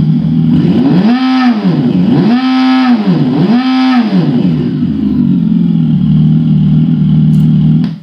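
Synthetic motorcycle engine sound from an aftermarket sound-effect speaker on a Super Soco electric motorcycle. It idles, is revved three times with the throttle, each rev rising and falling in pitch, then settles back to idle and cuts off suddenly at the end.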